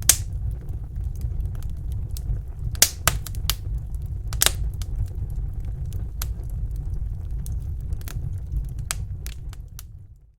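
Campfire crackling, with irregular sharp pops of burning wood over a low steady rumble. It fades out near the end.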